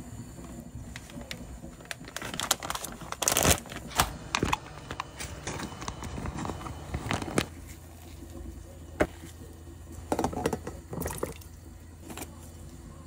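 Kitchen handling noises from food preparation: scattered clicks, knocks and crinkling, clustered in two bursts, over a low steady hum that strengthens about halfway through.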